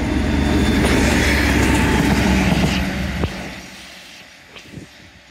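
Class 56 diesel locomotive with one box wagon passing close: a loud, low sixteen-cylinder diesel engine rumble and wheel-on-rail noise for about three seconds. A single sharp wheel click follows, then the sound fades quickly as the train draws away.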